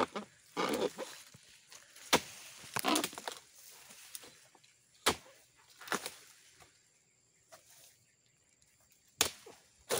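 Long-pole harvesting chisel chopping at an oil palm's frond bases and fruit-bunch stalk: about half a dozen sharp, irregular chops, some with a short rustle after them, then a quiet stretch before one last chop near the end.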